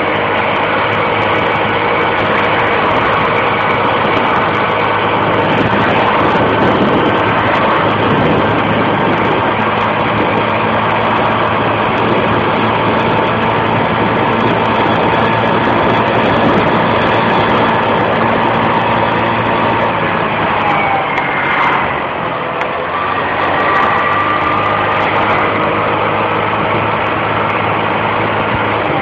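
Scooter engine running steadily while riding. About three-quarters of the way through, the engine note falls and the sound dips briefly as the throttle eases, then the note rises again as it picks up.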